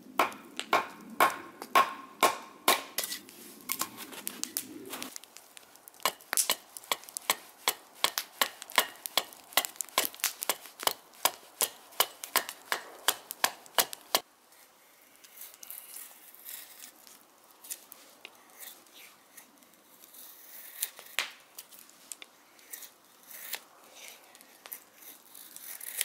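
Small Wetterlings axe chopping into a spruce blank on a chopping block in quick, regular strokes, about two to three sharp chops a second, hewing it flat. About halfway through the chopping stops abruptly, giving way to quieter scraping and light ticks as a Mora knife shaves off curls of wood.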